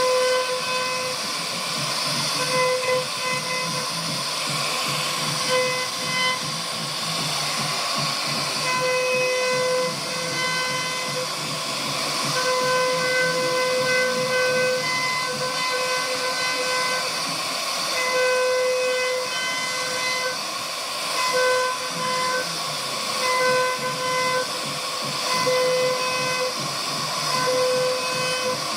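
CNC router spindle whining at a steady high pitch while its bit cuts wood, over a continuous hiss of cutting. The whine fades in and out every second or two as the cut goes on.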